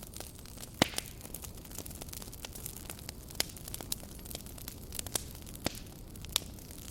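Campfire burning, wood crackling and popping with many irregular sharp snaps over a steady low rumble and hiss; the loudest pop comes a little under a second in.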